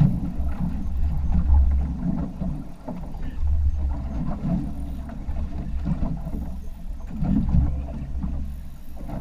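Low, uneven rumble of wind buffeting the microphone on an open boat at sea.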